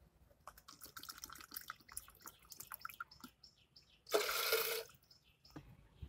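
Water poured from a plastic bottle into a small plastic cup: a trickle with scattered drips and short rising tones as the cup fills. About four seconds in, a short splashing pour as the cup is tipped out into a plastic jar.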